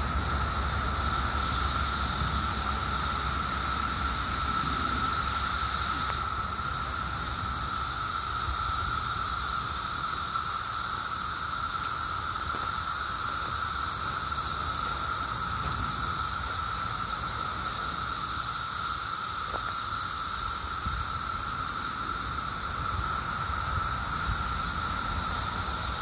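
Dense chorus of Brood X periodical cicadas (red-eyed Magicicada): a steady high, hissing buzz with a steady lower whine beneath it.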